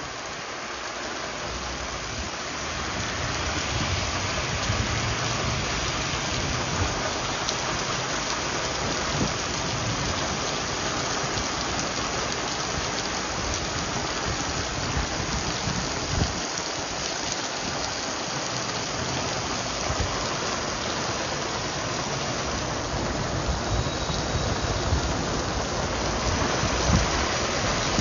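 Heavy summer downpour pelting a wet city street and pavement, a dense steady hiss of rain that builds over the first few seconds and then holds, with a few sharper hits.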